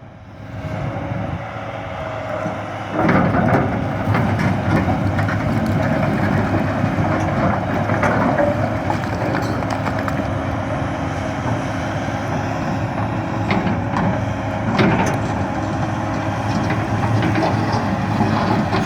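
1994 John Deere 450LC track excavator's diesel engine running steadily under working load, with louder surges twice.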